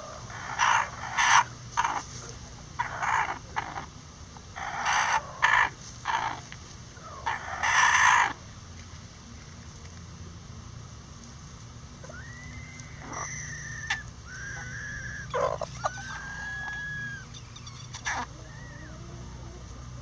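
Bantam chickens calling: a run of loud, short, harsh calls close by in the first eight seconds, then a rooster crowing several times further off, each crow a long call that rises, holds and falls.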